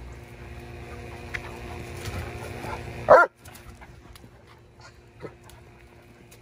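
A dog gives one short, loud bark during rough play, about three seconds in, followed by a few faint clicks.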